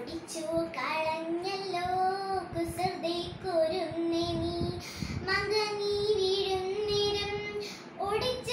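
A young girl singing a verse solo in Malayalam kathaprasangam style, in long drawn-out phrases with a short break about five seconds in.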